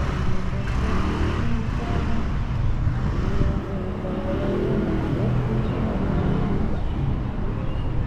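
Steady city street ambience dominated by passing road traffic.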